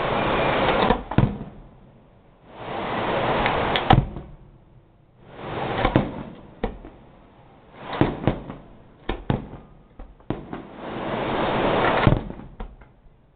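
Fireworks display: repeated rushing whooshes about every two to three seconds, each building and then breaking off. Sharp bangs and crackles come at their ends, with a cluster of crackling pops about two thirds of the way through.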